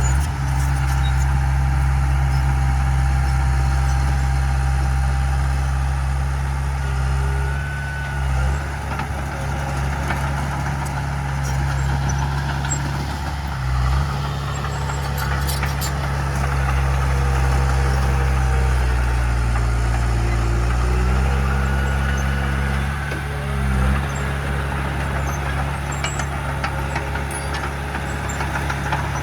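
Heavy earthmoving machine's diesel engine running steadily, its note briefly dipping three times and shifting down and back up in pitch about twenty seconds in.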